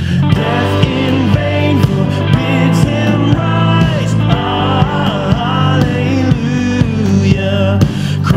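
Background music: a song with a sung melody over instruments and a steady beat.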